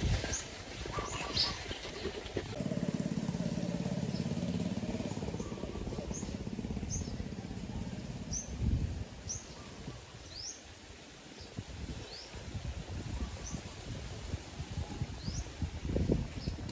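A small bird giving short, high chirps about once a second. Under the chirps, a low engine hum rises and fades away over the first half. A few soft knocks or rustles come near the start, in the middle and near the end.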